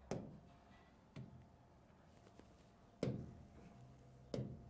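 Four sharp taps of a pen on the screen of an interactive whiteboard, irregularly spaced, as tools are picked from its toolbar and marks are written.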